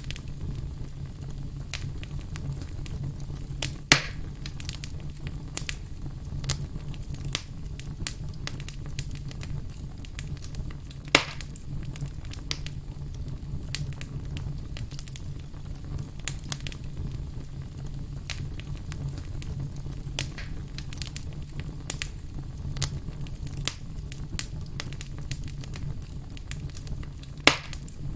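Firewood burning and crackling: a stream of small pops and snaps over a steady low rumble, with three louder pops about 4, 11 and 27 seconds in.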